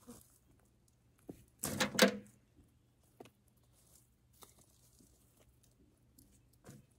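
Chickens pecking and scratching in loose soil close by, with sparse faint ticks and scrapes, and one brief loud scrape about two seconds in.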